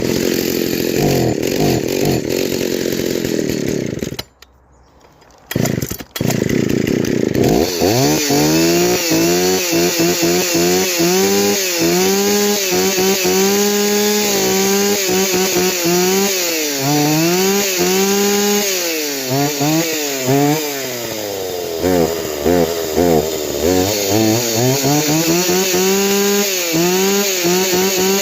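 Old Jonsered two-stroke chainsaw engine firing on a splash of gas in the carburettor after years unused: it runs about four seconds and dies, catches again a couple of seconds later and keeps running, revved up and down over and over.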